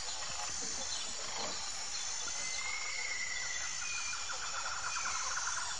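Steady high chirring of insects like crickets, with a few faint whistled calls gliding up and down and a pulsing trill from about three and a half seconds in to near the end.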